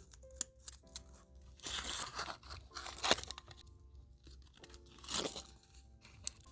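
Aluminium foil crinkling and crackling as it is peeled and crumpled off the tops of custard pudding molds, in loud bursts about two, three and five seconds in, over soft background music.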